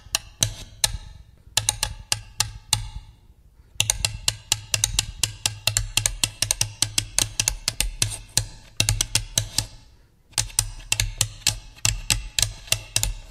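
Tap shoes tapping in quick runs of sharp clicks over a backing track with a steady bass line. The taps break off briefly about three and a half seconds in and again about ten seconds in.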